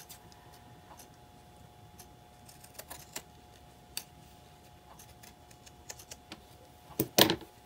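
Scissors snipping through painted fabric in a series of scattered light clicks, with the loudest few snips close together near the end.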